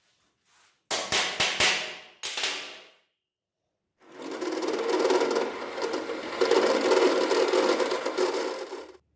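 Several sharp, ringing hammer blows on metal in quick succession, then, after a short gap, about five seconds of steady power-tool running that stops abruptly.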